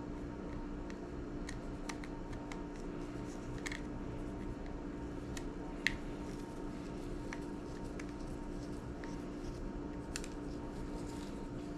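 Scattered small clicks and ticks of tools and plastic parts being handled while an iPod classic is taken apart, one sharper click a little before the middle, over a steady low hum.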